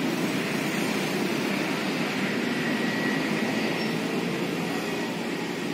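Steady rumble of city traffic, with no distinct passing vehicle or other event standing out.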